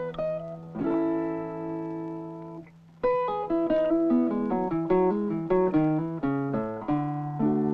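Background guitar music: a strummed chord rings for about two seconds, then after a short break comes a run of picked notes that ends on a chord.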